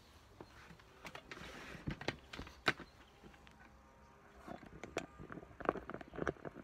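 Scattered knocks and clicks of someone moving about a wooden terrace table: footsteps on the boards and objects being set down and handled. The knocks come thicker in the last two seconds as the phone is picked up and repositioned.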